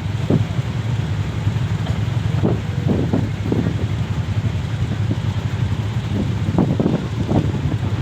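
A ferry's engine running with a steady low drone, with gusts of wind buffeting the microphone.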